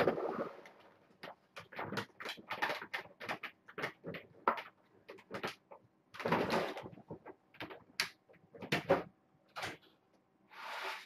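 Handling noises: a plastic bag rustling in longer bursts, with many small clicks and knocks of objects being moved.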